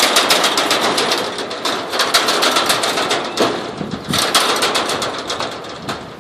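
Welded wire mesh of a cage rattling and clattering in quick, dense runs as a monkey climbs and swings across it, easing briefly partway through and fading near the end.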